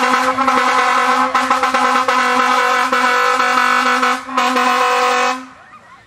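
Air horn blowing a long, loud, steady blast, briefly interrupted just after four seconds in, then cutting off near the end.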